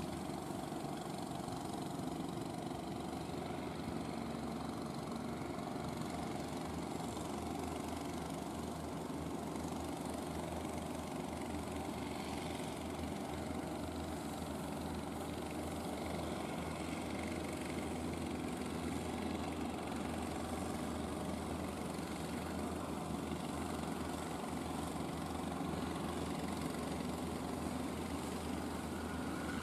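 Engines of wooden fishing boats running steadily as the boats motor past, a continuous low hum.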